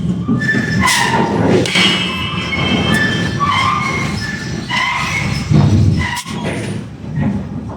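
Metal striking metal in a forge: repeated blows, several leaving a short metallic ring, over a steady low rumble.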